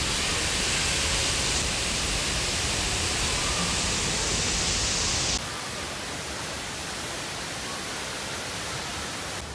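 Steady rushing of the Rain Vortex, the tall indoor waterfall at Jewel Changi Airport, falling into its basin. About five seconds in, the sound drops abruptly to a quieter, duller rush.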